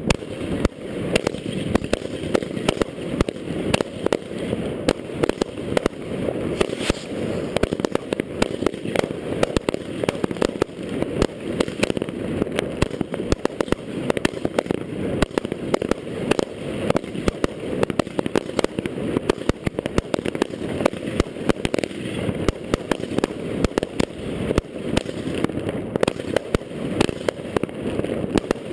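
Fireworks and firecrackers going off in a dense, unbroken barrage: many sharp bangs and crackles in quick succession over a steady low rumble.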